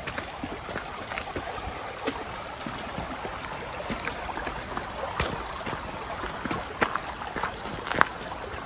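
Steady rush of flowing creek water, with scattered irregular footsteps on the trail.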